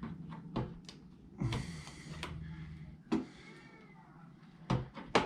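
Clicks and knocks of a hard drive being handled inside an opened iMac while its SATA data and power cables are plugged in, with a short scraping rustle about a second and a half in.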